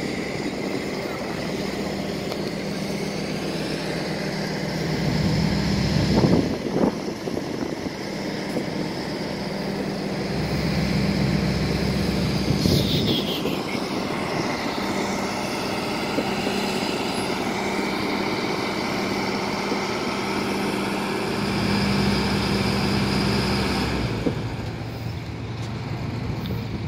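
Marine diesel engine running with a steady low drone that swells louder at times, with a couple of loud knocks about six seconds in.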